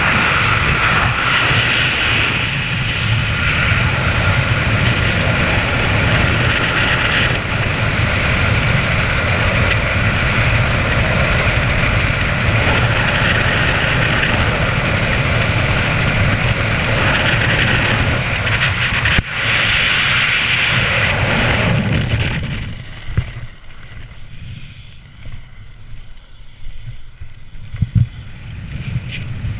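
Loud, steady rushing roar of air and engine noise during a skydive that drops away sharply about 22 seconds in, leaving quieter, gusty wind buffeting the microphone with a few thumps.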